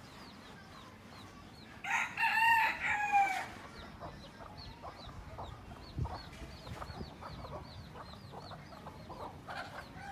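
A rooster crows once, about two seconds in, a loud call lasting about a second and a half. Faint short high chirps repeat a couple of times a second throughout.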